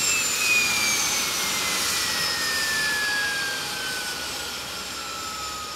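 AI-9 helicopter APU gas turbine winding down: a high whine falls steadily in pitch over a rushing hiss, and the whole sound slowly fades as the rotor loses speed.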